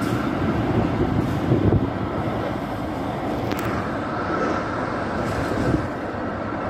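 Diesel railcar train moving away along the station tracks, its engines running with a steady rumble that fades a little as it draws off, with a few sharp wheel clicks over the rails.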